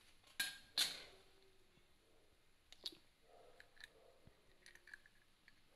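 A hen's egg being cracked over a bowl: two sharp taps about half a second apart in the first second, then a few faint clicks as the shell is pulled apart.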